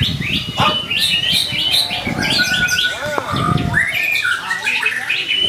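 White-rumped shama (murai batu) singing a fast, varied song of whistles and chattering notes, with one long downward whistle about three seconds in, over a low rumbling noise.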